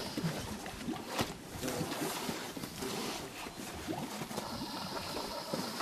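Open-air ambience: a steady hiss with a couple of sharp clicks about a second in and faint scattered sounds.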